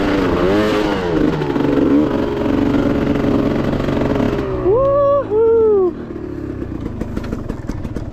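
Dirt bike engine revving up and down as it climbs a grassy trail, then settling to a lower, rough running. About five seconds in, two loud tones that each rise and fall stand out over the engine.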